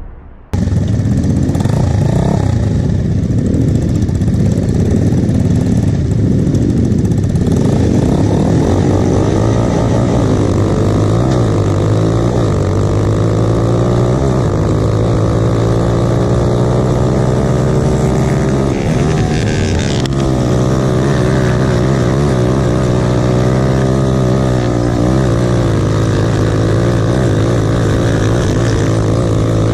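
Onboard sound of a Lifan-class grass kart's single-cylinder four-stroke engine at racing revs. Its note climbs steadily for several seconds, drops sharply about two-thirds of the way through as the kart slows for a corner, then rises and dips again through the following turns.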